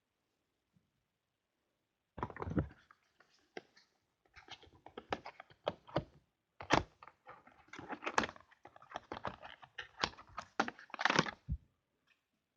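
Make-up products and advent-calendar packaging being handled: a run of quick taps, clicks and small knocks, starting about two seconds in and stopping shortly before the end.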